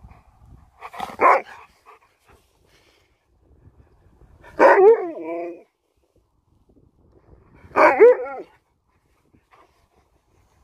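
Malamute giving three vocalisations: a short bark about a second in, then two longer wavering 'talking' calls a few seconds apart whose pitch bends up and down.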